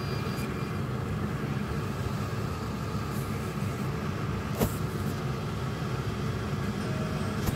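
Tteokbokki sauce simmering in a frying pan, a steady low bubbling, with one sharp click about four and a half seconds in.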